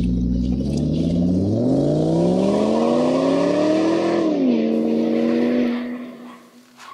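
Car engine revving up, its pitch climbing steadily for a few seconds, then dropping back sharply about four seconds in and holding at a steady pitch before fading out around six seconds in.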